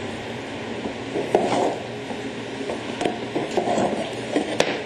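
Stiff cardboard board-game components being handled in their box: printed sheets lifted out, slid and set down, with irregular rustles and knocks and a sharp click near the end.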